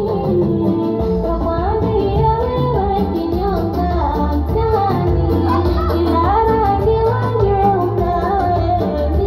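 Women singing a Swahili qaswida into microphones over instrumental backing, one melodic line rising and falling without a break.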